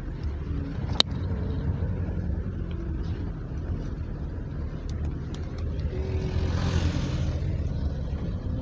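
Excavator's diesel engine running with a steady low rumble. There is a sharp click about a second in, and near the end a rush of hissing noise swells and fades.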